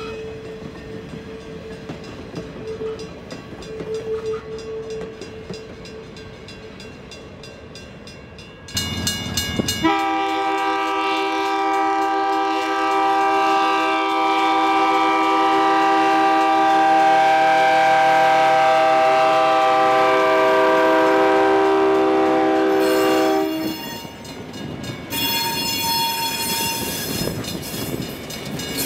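Railcars and a caboose rolling past on jointed track, with a faint, on-and-off wheel squeal. Then a diesel locomotive's multi-chime air horn blows one long, loud chord of about thirteen seconds as it nears the crossing, cuts off, and the locomotive rumbles by.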